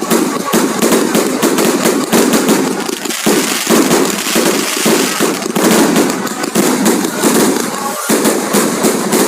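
Fireworks and firecrackers going off in a dense, unbroken barrage of rapid pops and crackles.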